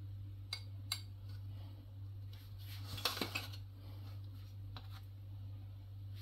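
Metal kitchen tongs clicking and scraping against an aluminium steamer tray and glass bowls as cubes of steamed pumpkin are picked up and dropped in: a couple of light clinks early, then a cluster of scraping and clinks about three seconds in.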